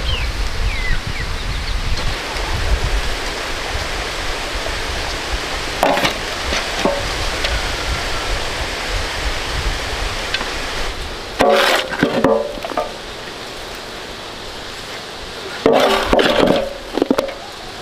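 A metal shovel scooping compost out of a metal basin, its blade scraping and ringing against the basin in two loud bursts, one about two-thirds of the way in and one near the end, over a steady background hiss.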